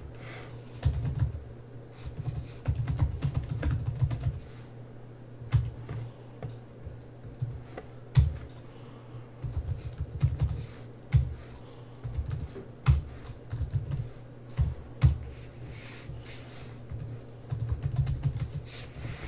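Typing on a computer keyboard in irregular bursts of keystrokes with short pauses between them.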